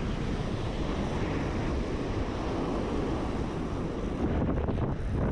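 Steady wind buffeting the microphone, over the wash of surf.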